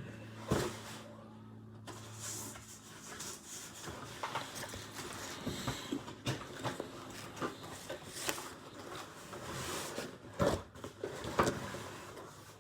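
Scattered knocks, clicks and rustles of objects being handled, with a low steady hum in the first couple of seconds.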